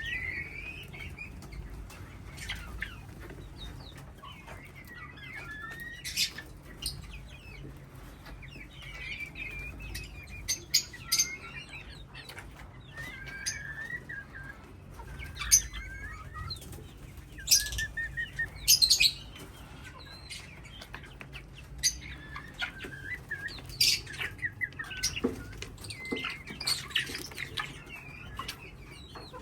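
A colony of parrots calling: many short chirps that bend up and down in pitch, broken by scattered sharp, loud calls.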